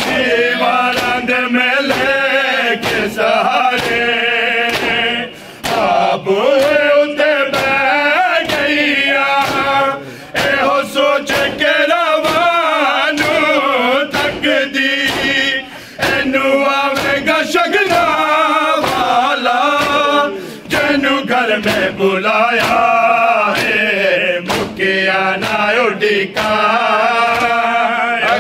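A small group of men chanting a Punjabi noha (a Shia lament) together, close to the microphones, their voices rising and falling through a repeated refrain. Under the singing runs a steady beat of sharp thumps from hands striking chests (matam).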